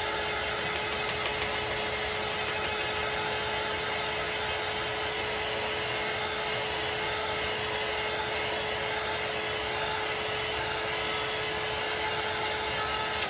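Small handheld electric dryer blowing steadily, a rush of air with a steady hum, drying freshly applied chalk paste on a stencil. It switches off at the very end.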